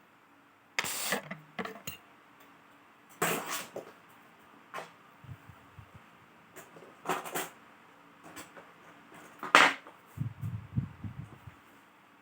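Clicks and knocks of a laptop and tools being handled on a work surface, the loudest about nine and a half seconds in, followed by a run of soft low thumps near the end.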